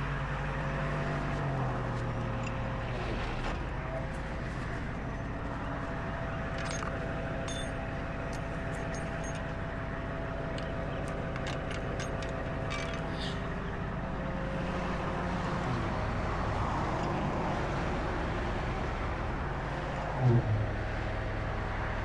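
Tow truck's engine running steadily while the wheel lift is lowered, with a string of light clicks in the middle and a short louder sound near the end.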